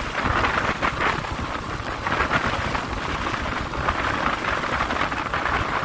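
Steady wind rush over the microphone of a Yamaha Crypton S riding at road speed, with engine and road noise underneath.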